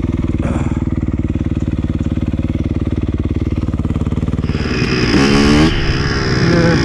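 Honda dirt bike engine running at low trail-riding speed with a steady chugging pulse. About five seconds in it gets louder, its pitch rising and falling briefly.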